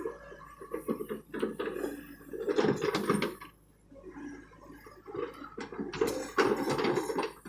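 John Deere excavator at work: irregular scraping and clattering, like the bucket working through soil and rock, loudest about two and a half to three seconds in and again around six to seven seconds in.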